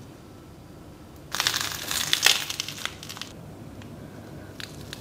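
Crisp toasted bread crunching for about two seconds, starting just over a second in, followed by a few faint crackles near the end.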